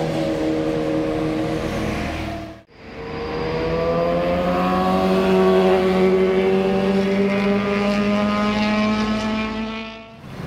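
A motor vehicle engine running at a steady pitch, breaking off abruptly a little under three seconds in. Then a second engine note comes in and climbs slowly in pitch as it accelerates, holds, and fades near the end.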